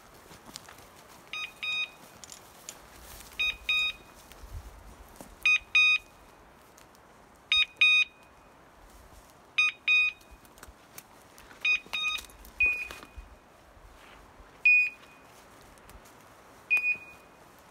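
Electronic beeper collar on a hunting dog beeping: short high beeps in groups of two or three about every two seconds, changing to single beeps spaced about two seconds apart in the last few seconds.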